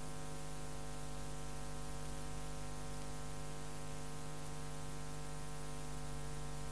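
Steady electrical hum with a layer of hiss, unchanging throughout: the soundtrack's own background noise, with no mechanical events.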